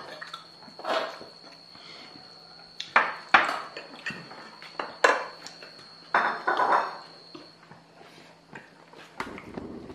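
Dishes and cutlery clinking and knocking, a handful of separate clatters spread over several seconds.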